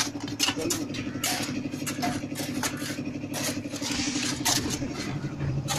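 Digging tools, a hoe and an iron crowbar, striking soil and stones in quick, irregular chops, a few per second. Under them an engine runs with a steady hum.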